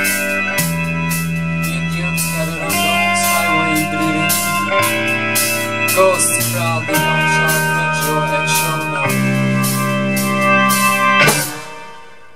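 Rock band playing together: sustained keyboard chords with electric guitar and bass, the chords changing about every two seconds, and cymbals keeping time. The band stops about eleven seconds in.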